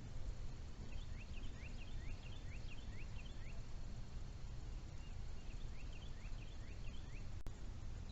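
A songbird singing two quick runs of short, falling chirps, the second starting a couple of seconds after the first ends, over a steady low rumble. A single sharp click sounds near the end.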